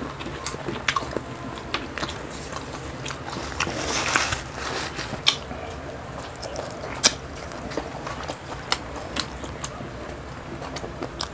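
People chewing and biting into grilled food, with scattered sharp clicks and smacks.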